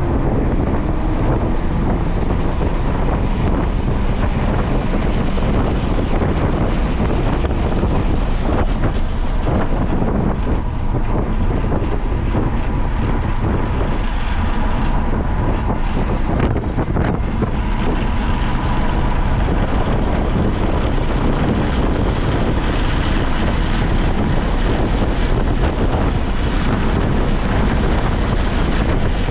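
A car driven hard around a race track, heard from onboard: its engine runs under load beneath heavy wind noise on the microphone, with no let-up.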